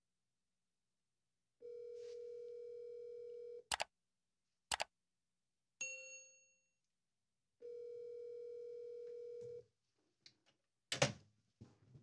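Telephone ringback tone heard faintly from the rotary phone's handset: two steady two-second rings about six seconds apart, the signal that the called extension is ringing. Between them come two sharp clicks and a short ringing tone that fades away, and a few clicks near the end.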